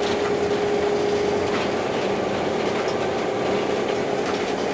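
Diesel locomotive running underway, heard from inside its cab: a steady engine drone with a constant hum and a few faint clicks from the wheels and track.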